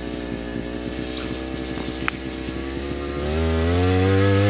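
Engine of a Krot walk-behind motor cultivator running steadily, then revving up and getting louder about three seconds in.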